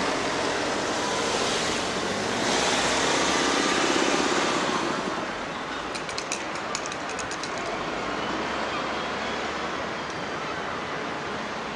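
Seafront road traffic: a steady hiss of passing vehicles, with one passing louder a few seconds in. A quick run of sharp clicks comes about six seconds in.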